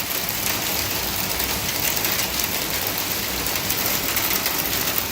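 Hail and heavy rain pelting down, a dense, steady clatter of many small impacts.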